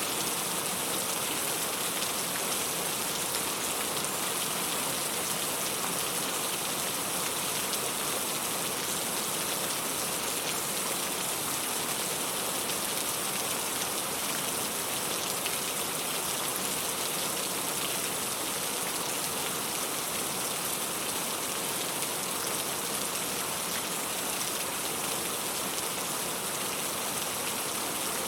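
Steady rain falling, an even, unchanging hiss of drops.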